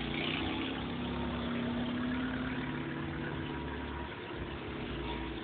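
Several cars passing slowly one after another, their engines running steadily at low revs.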